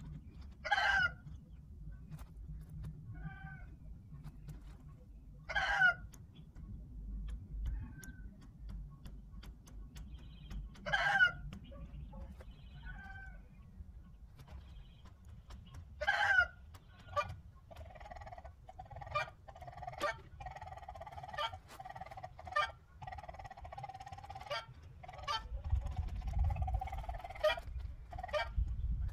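Chickens calling: a loud, short squawk about every five seconds, then from about halfway a denser run of repeated clucking calls.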